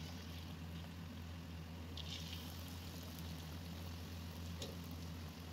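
Chicken pieces deep-frying in hot oil: a steady bubbling sizzle with a few sharper crackles, over a low steady hum.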